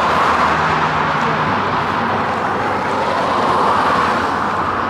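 Steady road traffic noise, an even rushing sound with a low rumble underneath.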